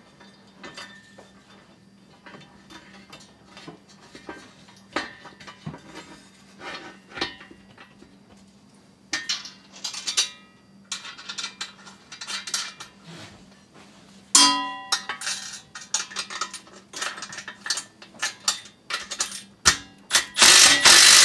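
Powder-coated steel brush-guard plates, bolts and washers clinking and clanking as they are handled and fitted together, with one sharp ringing clang about two-thirds of the way in. Near the end a cordless impact driver runs briefly and loudly, driving a bolt home.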